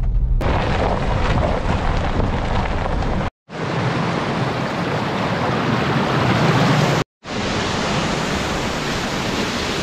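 Steady roar of the Sopot waterfall, a dense, even rush of falling water. It breaks off abruptly for a split second twice, about three and seven seconds in.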